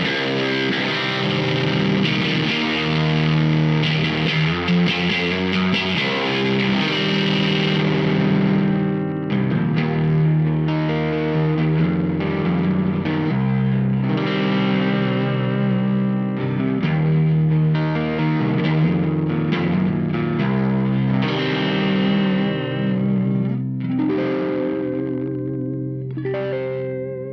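Electric guitar played through a Weird Noise Effects pedal: sustained chords and held notes that change every second or two. The tone is bright for about the first eight seconds, then the treble drops away. Near the end the notes waver in pitch.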